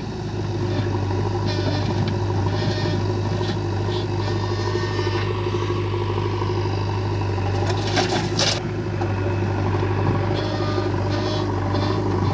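Heavy diesel machinery engine running steadily, with scattered clanking and a short, loud rushing burst about eight seconds in.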